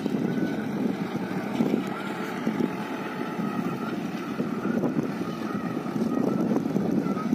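Distant tractor engine running steadily under load as it hauls a loaded trolley, with wind buffeting the microphone.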